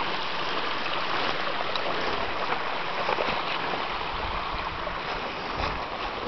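Steady rushing of flowing water. A low rumble comes and goes from about four seconds in.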